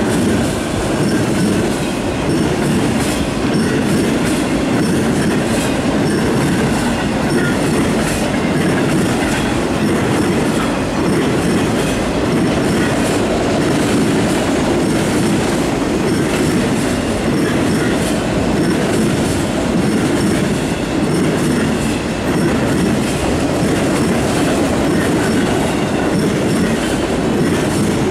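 Freight train of autorack cars rolling past, a steady loud rumble of steel wheels on rail with a regular clickety-clack over the rail joints.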